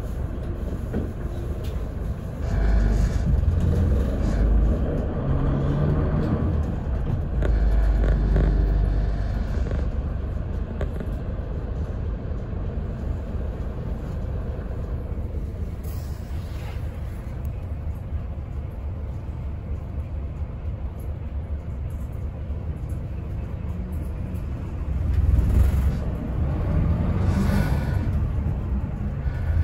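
City bus heard from inside the cabin: its diesel engine running with a steady low rumble, which swells louder about three seconds in, again around eight seconds in, and once more near the end.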